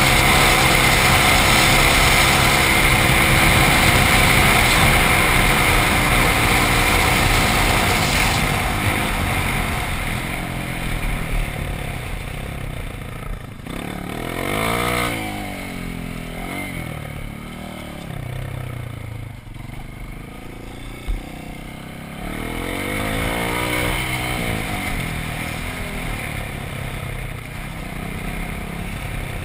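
Dirt bike engine heard from the rider's helmet, running steadily at speed with loud road and wind hiss, then easing off about a third of the way in. Later the engine revs up and down a few times before pulling away again.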